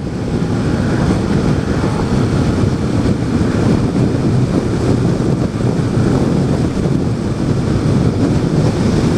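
A Yamaha FZ-07 motorcycle being ridden, its engine and road noise under a steady, heavy rush of wind buffeting the microphone.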